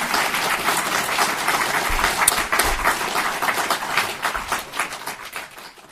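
Audience applauding at the end of a talk: a dense run of many people's handclaps that thins out and fades near the end.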